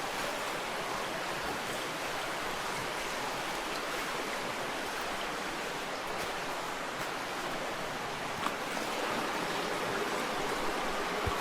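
Creek water running steadily over rocks, with a couple of faint knocks.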